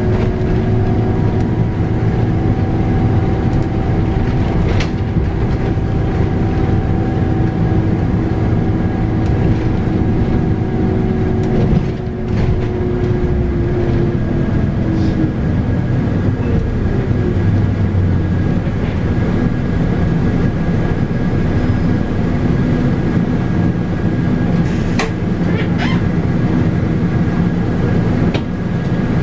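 Scania K310UB bus's 8.9-litre five-cylinder Scania DC9 diesel and ZF Ecomat six-speed automatic driveline running under way, heard on board: a steady low rumble with a high whine over it. Another whine falls slightly in pitch and fades out about halfway, and a few sharp rattles or clicks come through.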